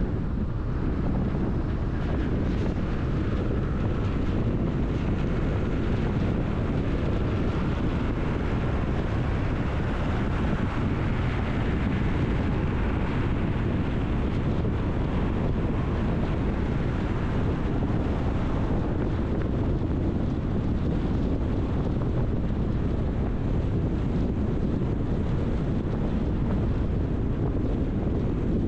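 Car driving, with a steady low rumble of road and tyre noise. A brighter hiss swells through the middle and fades about two-thirds of the way in.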